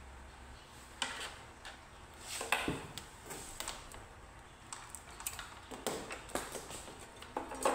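Handling noise: scattered light clicks, taps and knocks of small objects and tools being moved about on a table, at irregular intervals.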